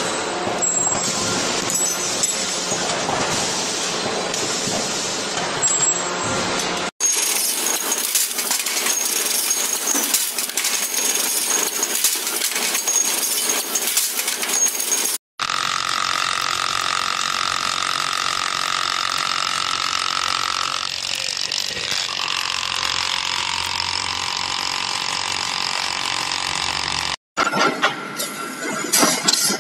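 Factory metalworking machines running in a series of short clips. First a busy mechanical clatter, then an automatic parts-making machine with fast rattling strokes, then a steady machine run with a high whine that drops lower partway through. Near the end comes the uneven rasping of a lathe cutting metal.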